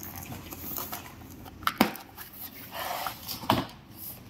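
Cardboard carton being opened by hand: scissors cutting the packing tape and the box flaps being pulled back, with two sharp knocks, about two seconds in and near the end, and a brief rustle of cardboard between them.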